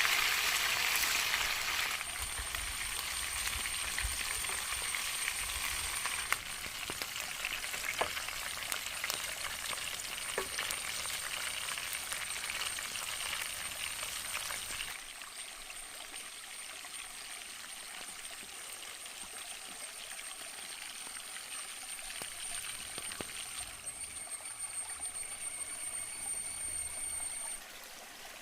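Chicken frying in hot oil: a steady sizzle with a few light clicks of stirring, shifting abruptly in loudness a few times. A thin, steady high-pitched whine runs through most of it.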